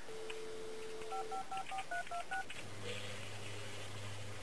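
Telephone dial tone, then seven touch-tone keypad beeps dialed in quick succession, followed by a low steady buzz for about two seconds.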